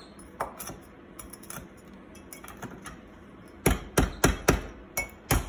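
Cleaver blade laid flat on a wooden cutting board and struck by hand to crack cumin and coriander seeds: light taps at first, then about six heavy knocks, three or four a second, starting past halfway.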